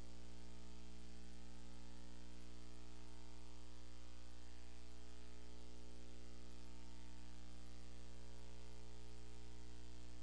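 Steady electrical mains hum with a buzz of many overtones, over a constant hiss, from the recording and sound system, unchanging throughout.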